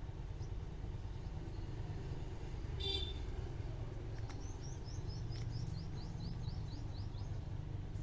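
Steady low background rumble, with a brief high tone about three seconds in. In the second half a bird calls a quick run of about a dozen short high chirps, drifting slightly lower in pitch.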